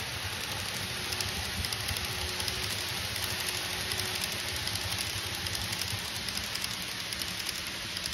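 N-scale model trains of the Saikyo and Yamanote lines running on the layout track: a steady rolling rattle of small wheels on rail, thick with rapid clicks, over a low hum.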